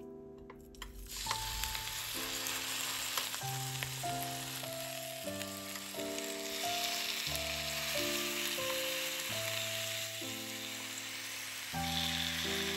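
Zucchini frying in hot olive oil in a pan: a steady sizzle with scattered pops that starts about a second in.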